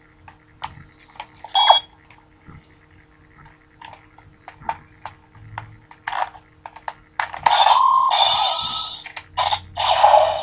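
Plastic clicks as a Ranger key is fitted and turned in an electronic Gokaiger changer toy, then from about seven seconds in the toy's speaker plays loud electronic sound effects in several bursts, the toy activated by the key.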